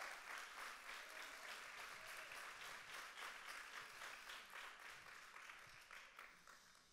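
Congregation applauding, many hands clapping together, slowly dying away toward the end.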